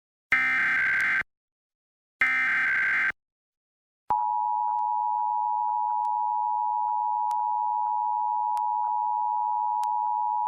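Emergency Alert System Required Monthly Test signal. It begins with two bursts of warbling digital SAME header data, each about a second long with a second of silence between them. Then, about four seconds in, the steady two-tone EAS attention signal (853 and 960 Hz) starts and holds.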